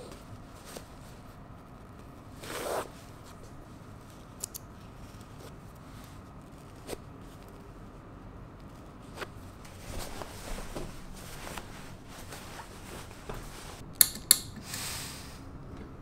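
Small pointed scissors snipping white basting threads in trouser cloth, with the cloth rustling as it is handled. The snips come scattered and sparse, with a rustle a few seconds in and two sharp, louder snips in quick succession near the end.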